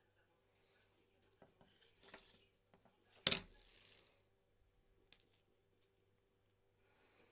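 Small handling sounds on a work surface: a brief scrape, then a sharp click or tap followed by a short rustle, and a lighter click a couple of seconds later.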